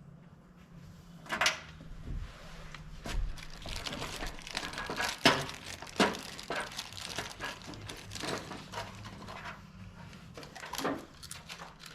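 Scattered clicks, taps and rustling of hand work fitting screws and brackets, with a few sharper knocks about a second and a half in and again around five and six seconds in.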